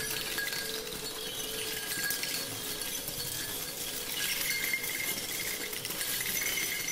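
A cluster of small metal objects held against a large spinning percussion table, clinking and rattling continuously in a dense texture of fine ticks. Faint steady ringing tones sound underneath.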